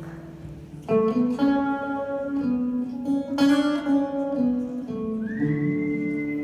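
Guitar strumming chords that ring on, playing a song's intro, with two strong strums about one and three and a half seconds in. A high held note slides up near the end.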